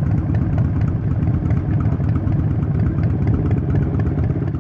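Harley-Davidson Forty-Eight's air-cooled 1200 cc V-twin running steadily at idle through an aftermarket Vance & Hines exhaust, with a low, uneven throb.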